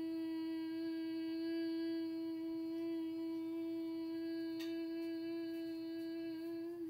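A woman humming one long, steady note on an out-breath, like a bee: the bumblebee breathing exercise (bhramari breath) used for calming.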